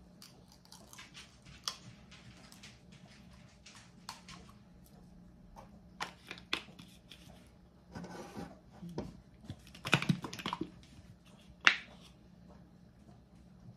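Light clicks, taps and scraping from handling kitchen things: a ketchup bottle and a measuring cup with a spoon in it being moved about on a wooden table. A few sharper knocks come in the second half, the loudest near the end.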